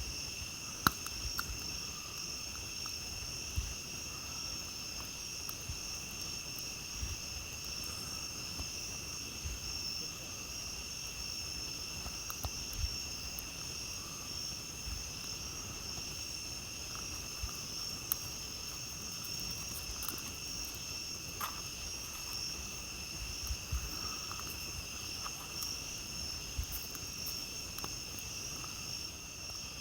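Night insects trilling steadily and unbroken, over a campfire that crackles with scattered sharp pops, the loudest about a second in.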